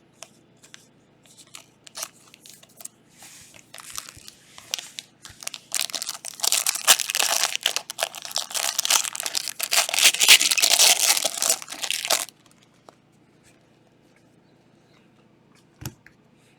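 Trading card packaging being torn open: a few soft handling clicks, then about six seconds of loud tearing and crinkling that stops abruptly.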